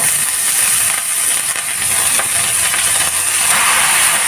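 Washed amaranth leaves sizzling in hot oil in a kadai as they are stirred in with a spatula, the water still clinging to the leaves making the oil hiss steadily. The sizzle gets a little louder and sharper about three and a half seconds in.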